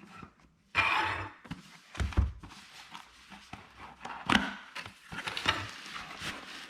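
Packaging being handled as a drone's retail box is opened: a sliding scrape, then a few thumps and clicks with light rustling between them.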